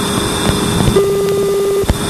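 Sonified spacecraft radio and plasma-wave data: a steady static hiss with faint, regularly spaced clicks. About halfway in a steady tone comes in, and it cuts off abruptly just before the end.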